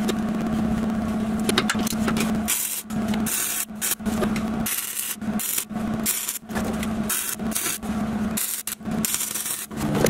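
Wire-feed (MIG) welder arc crackling in a string of short bursts, each about half a second with brief gaps, starting a couple of seconds in, as a steel exhaust hanger bracket is welded on. A steady low hum runs underneath.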